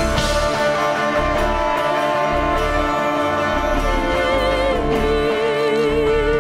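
Live worship band music: sustained chords over a pulsing bass, with an electric guitar in the band. In the second half a single held lead note wavers steadily in pitch.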